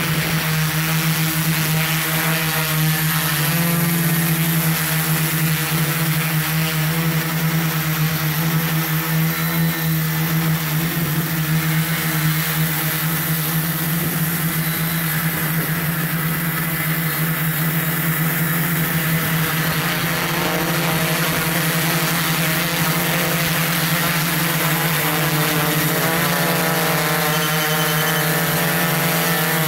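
Multirotor drone's motors and propellers humming steadily in flight: one constant pitch with overtones, and the higher overtones waver slightly near the end.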